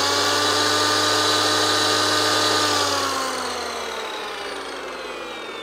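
Corded 7-1/4-inch, 15-amp circular saw running free at full speed with a steady motor whine. About three seconds in the trigger is released and the motor spins down, its pitch falling. It runs without trouble off a 2,000-watt power inverter.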